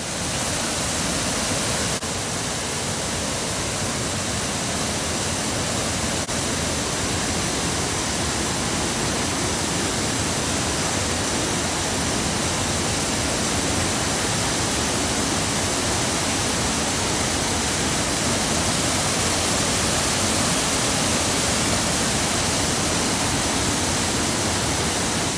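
Waterfall spilling over a concrete weir into a stream's plunge pool: a loud, steady rush of falling water.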